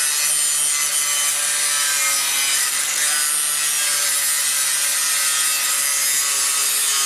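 Electric angle grinder with its disc running steadily against steel, smoothing down a fresh weld on a welded-in sheet-metal patch.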